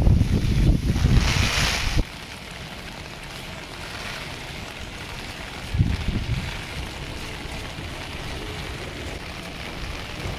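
Wind buffeting a phone's microphone over the hiss of heavy rain, loud at first and cutting off suddenly about two seconds in. After that a steady, quieter hiss remains, with a single low thump about six seconds in.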